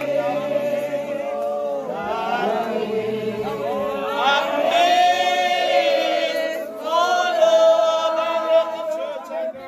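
A crowd of Revival Zion worshippers singing a worship song together without instruments, in long held phrases with a short break about two-thirds through.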